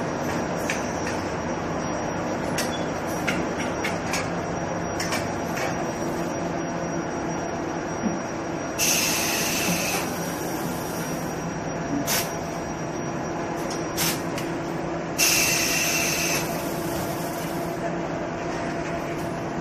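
Brake lining powder weighing and bag-packing machine running with a steady mechanical hum, scattered clicks and knocks, and two loud hisses of about a second each, near the middle and about two-thirds of the way through.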